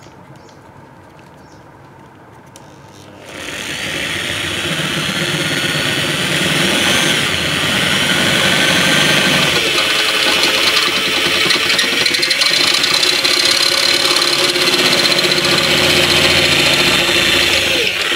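Electric drill running a titanium-coated HSS step drill bit through sheet metal to enlarge a hole: a steady motor whine mixed with the scraping of the bit cutting the metal. It starts about three seconds in and runs until near the end, the pitch sagging a little midway as the bit bites.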